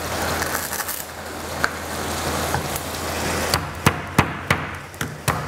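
Chef's knife chopping lemongrass stalks on a wooden cutting board: a run of five or six sharp knocks, about three a second, in the second half, over a steady hiss.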